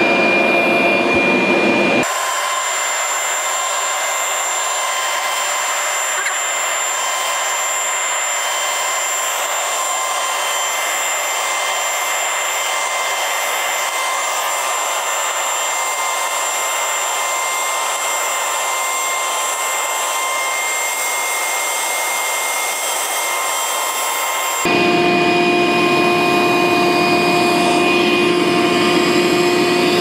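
Cordless 18 V wet/dry shop vacuum running at full suction, drawing loose sawdust up through its hose nozzle: a steady whine with several held tones. The tone changes abruptly about two seconds in and again near the end.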